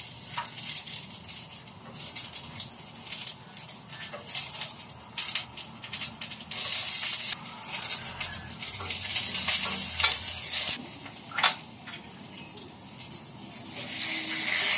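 Food frying in a pan on a gas stove, a steady sizzling hiss, with irregular sharp knocks of a knife cutting on a wooden board.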